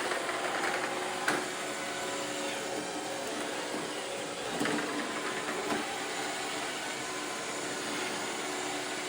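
iRobot Roomba 675 robot vacuum running, its motors and brushes giving a steady whirring hum with a few steady tones. There is one sharp knock about a second in, and a couple of softer bumps later.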